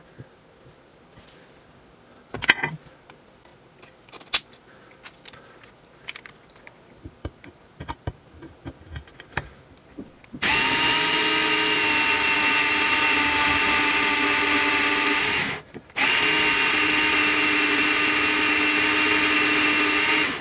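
Light clicks and knocks of handling, then an electric drill runs steadily, boring into an aluminium build plate through a 3D-printed drill guide. The drill starts about halfway in and stops once briefly near three-quarters through before running again.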